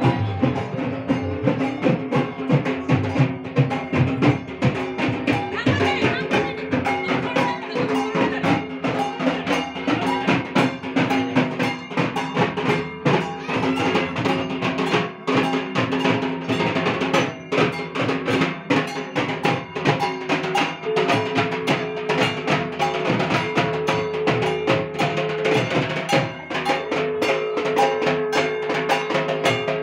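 Music with fast, dense drumming and long held notes over it, the drumming going on without a break.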